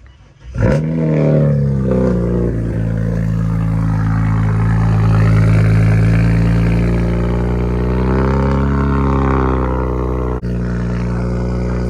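BMW N54 twin-turbo inline-six cold-starting through a single-exit exhaust: it catches with a loud flare under a second in, drops back over about a second and settles into a loud, steady cold-start high idle, with a slight swell in revs a few seconds from the end.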